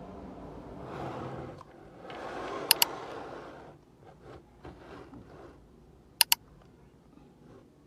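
Rustling and handling noises of items being unpacked, fading after about four seconds into faint small taps and rustles, with two sharp double clicks, one near the middle and one later.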